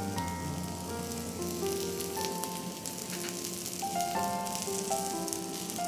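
Rice-and-besan pancakes sizzling in oil in a mini uttapam nonstick pan as more oil is brushed over them for the second side. Soft background music with held notes plays underneath.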